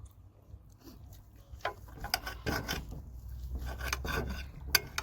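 Tableware being handled at a meal: a run of small clicks and knocks with scraping and rubbing, busiest in the middle.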